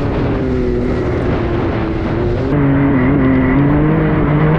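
Can-Am Maverick X3 Turbo side-by-side's engine running steadily at trail speed, heard from the cab. Its pitch wavers slightly. About halfway through, the sound gets a little louder and brighter.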